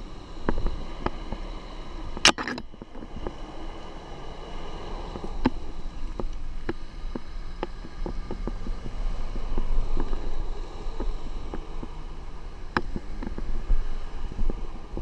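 Pickup truck driving slowly over a rough forest dirt track, heard close up: a low rumble of engine and microphone wind with frequent short knocks and rattles as the truck jolts, and one loud sharp crack about two seconds in.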